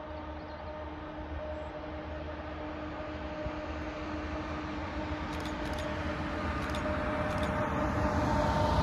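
Siemens Vectron Dual Mode (class 248) locomotive approaching with a freight train: a steady droning hum with a few held tones over a low rumble, growing louder as it nears.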